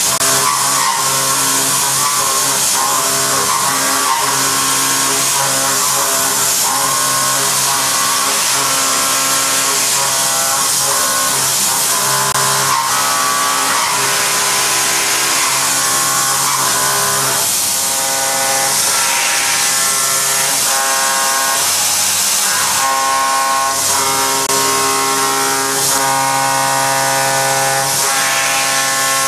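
Vertical milling machine cutting tool steel with an indexable-insert cutter: a steady hiss with several pitched whining tones from the cut, whose pitch shifts a couple of times as the cut changes.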